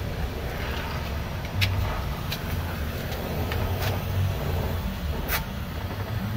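A steady low rumble with four sharp metallic clinks, about a second apart, as a motorized bike's two-stroke exhaust pipe and a gas torch are handled on a concrete floor.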